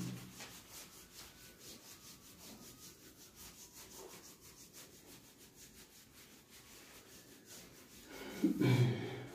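A whiteboard being wiped clean by hand: faint, quick back-and-forth rubbing strokes.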